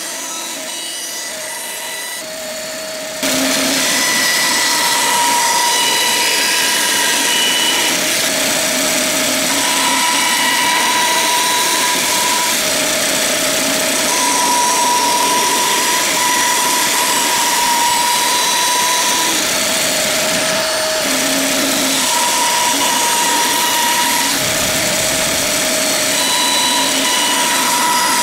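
Bandsaw running and cutting 12 mm plywood. It is a steady whirring hiss that gets suddenly louder about three seconds in, with a whine that comes and goes.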